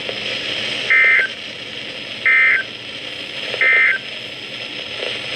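Three short Emergency Alert System end-of-message data bursts broadcast over NOAA Weather Radio, about a second and a half apart, with a steady radio hiss underneath. They signal that the alert broadcast is over.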